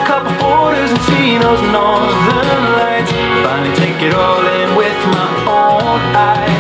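Upbeat pop-country song playing, with guitar, drums and a melodic lead line between sung phrases.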